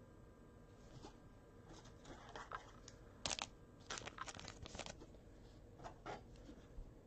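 Faint rustling and crinkling of trading cards and their plastic packaging being handled, with a cluster of short crinkles about three to five seconds in.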